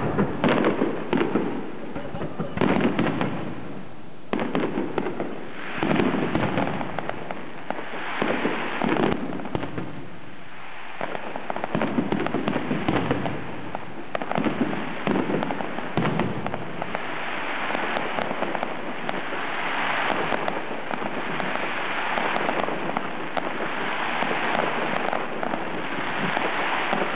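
Fireworks display: aerial shells bursting in a run of sharp bangs. From about two-thirds of the way through, the bangs give way to a denser, continuous hissing as ground fountains and several shells go off at once.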